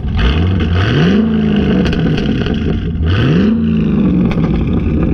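Chevy SS's 6.2-litre LS3 V8 revved twice from idle, each blip rising and dropping back, through 3-inch Solo Performance axle-back exhausts with the secondary catalytic converters deleted.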